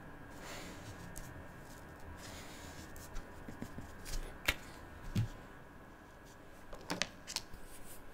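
Felt-tip marker drawing on paper, soft scratchy strokes, followed by a few sharp plastic clicks and taps as the markers are handled and a marker cap is pulled off.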